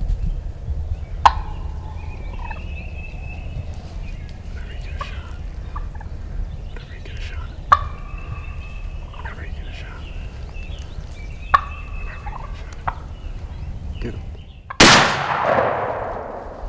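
Wild turkey gobbler gobbling three times, about a second in, near the middle and about two-thirds through, over a steady low rumble. Near the end a loud sudden burst cuts in and fades over about a second and a half.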